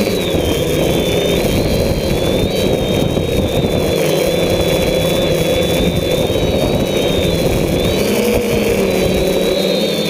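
DJI F550 hexacopter's motors and propellers whining steadily, their pitch drifting up and down, heard from a camera on the craft. Heavy wind buffeting on the microphone sounds under the whine.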